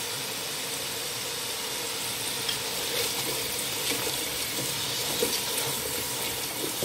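Whole spices and fresh and dried chillies sizzling steadily as they fry in hot oil in a pot, with a spatula stirring and scraping a few times.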